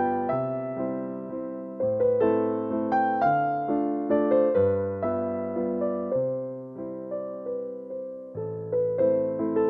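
Background music: a gentle electric piano melody played over sustained bass notes.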